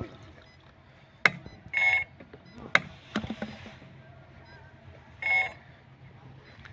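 A short electronic beep sounds twice, about three and a half seconds apart. Between the beeps come sharp plastic clicks and knocks from the drone's spray tank and a plastic jerry can being handled.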